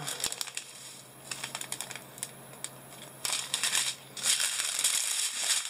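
A strip of sealed plastic and foil drill packets from a diamond painting kit being unrolled and handled: light scattered clicks at first, then louder crinkling from about three seconds in.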